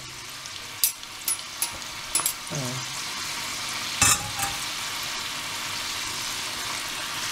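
Soaked chana dal deep-frying in hot oil in a kadai: a steady, busy sizzle. Metal ladles clink against the pan several times, loudest about four seconds in. The sizzle has not yet died down, the sign that the dal is not yet crisp.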